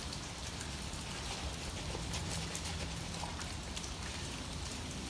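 Steady rain falling, with scattered small drop ticks.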